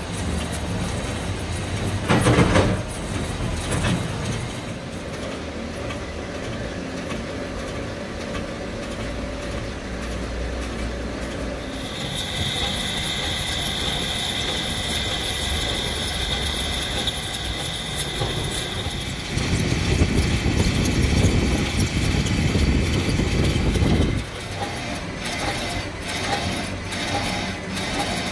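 Heavy engine lathe running, its tool cutting a large steel shaft with a steady mechanical noise. A sharp knock comes about two seconds in, a steady high whine joins for several seconds midway, and a louder low rumble follows for a few seconds later on.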